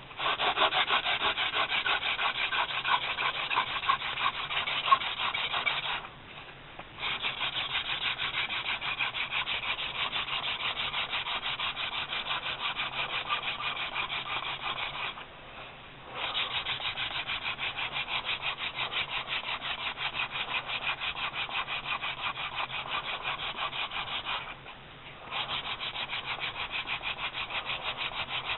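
Wooden hand-drill spindle spun back and forth between the palms in the socket of a two-stick baseboard: a fast, rhythmic wood-on-wood rubbing as friction builds to raise an ember. It comes in three long runs, each broken by a pause of about a second, some six, fifteen and twenty-five seconds in.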